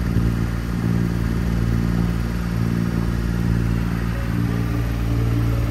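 A sailing yacht's engine running steadily with a low, even hum as the boat motors along under power. Music starts faintly near the end.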